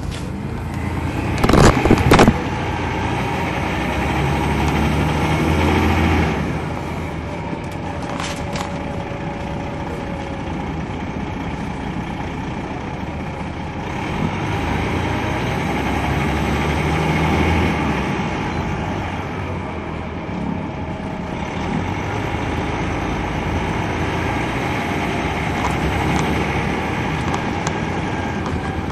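Detroit Diesel Series 60 inline-six diesel of a 2003 MCI D4500 coach running on the road, heard from on board the bus, its sound swelling under load twice. A brief loud clatter comes about two seconds in.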